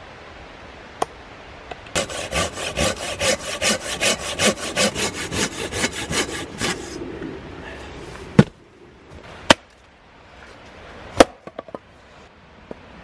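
Small hand saw cutting across a wooden branch in rapid back-and-forth strokes, about five a second, for roughly five seconds. Then three sharp hatchet chops into the wood, followed by a few lighter knocks.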